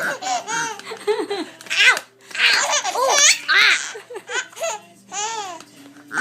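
Five-month-old baby laughing in repeated short bursts, with a brief pause about two seconds in.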